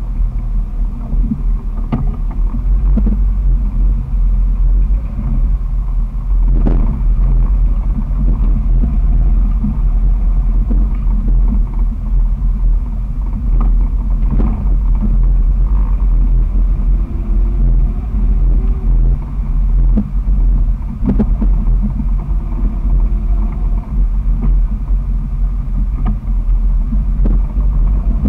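2001 Jeep Wrangler TJ's 4.0-litre straight-six running through a muffler-back delete, a steady loud low rumble as the Jeep drives a dirt trail, with several short knocks over it.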